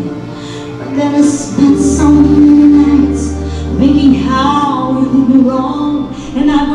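A song with a woman singing over instrumental backing, her held notes wavering with vibrato.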